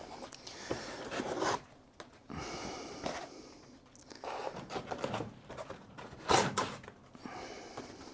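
Unboxing handling noise: packaging and parts being moved about, with irregular rustling and light clicks and knocks, the loudest a sharp knock about six seconds in.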